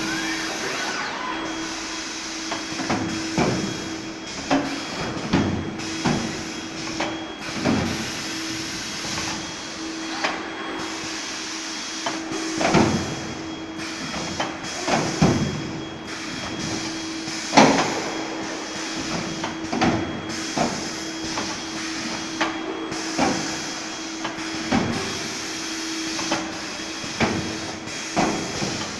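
Industrial noise from an automotive robotic welding line: a steady machine hum and hiss, with irregular clanks and knocks every second or so, one sharp loud clank about two-thirds of the way through.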